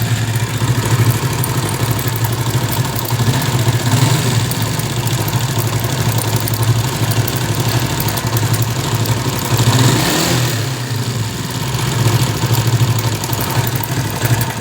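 China-made 70 cc motorcycle engine running at idle with a timing chain noise that has persisted through repeated chain replacements; the engine speed rises briefly about ten seconds in.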